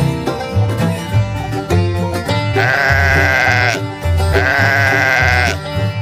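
Goat bleating twice over background music. Each bleat lasts about a second and has a wavering, quavering pitch. The first starts about two and a half seconds in.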